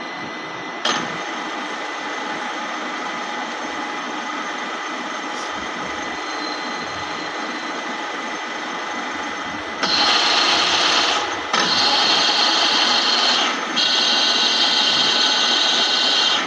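Dufour 221 universal milling machine running with a steady mechanical whir. About ten seconds in it becomes a louder, higher-pitched run in three stretches with two brief drops between them.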